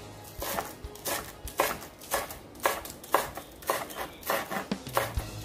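Kitchen knife slicing spring onions on a cutting board, the blade knocking against the board in a steady run of cuts about twice a second.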